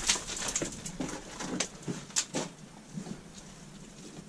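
Irregular scuffs and scrapes of shoes and hands on rock as a person climbs beside a rope through a narrow rock opening. The scrapes come thickest in the first couple of seconds, then thin out.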